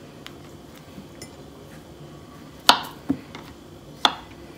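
Kitchen knife knocking on a plastic cutting board as a peeled banana is sliced: three sharp knocks in the second half, the first the loudest.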